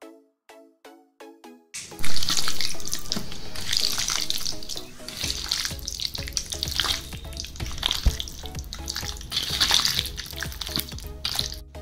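Light background music with short, regular notes. From about two seconds in, loud wet squelching and squishing swells and fades as hands knead chicken pieces through a thick spice marinade in a steel bowl, with the music continuing faintly underneath.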